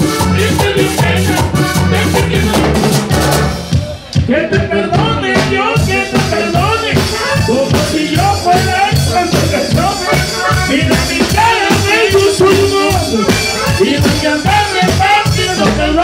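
Live vallenato music: a button accordion plays the melody over hand drums and a scraped, shaken percussion rhythm. The band breaks off briefly about four seconds in, then comes back in.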